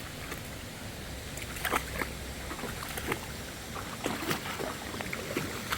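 Irregular splashing in shallow creek water, starting about one and a half seconds in, over a steady rush of flowing water.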